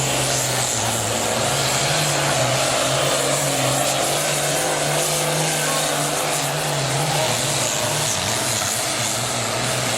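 Super farm class pulling tractor's diesel engine running hard, a loud steady drone whose pitch wavers slightly.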